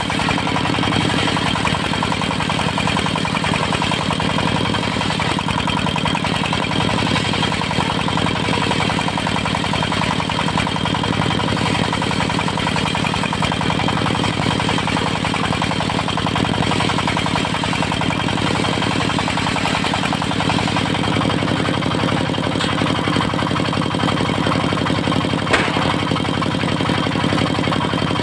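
Diesel engine of a portable circular-saw sawmill running steadily at a constant speed, with a steady high tone over it. A single sharp click comes near the end.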